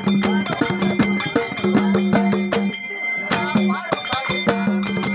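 Live folk music: a large rope-laced barrel drum beaten with bare hands in a fast, even rhythm, with small brass hand cymbals ringing on the beat and a voice singing over them.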